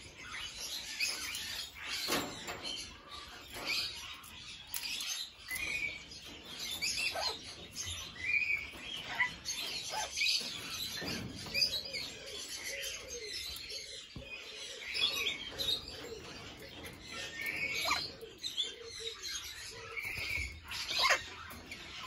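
Aviary parrots chirping and chattering: many short, high calls scattered throughout, some with quick little up-and-down glides.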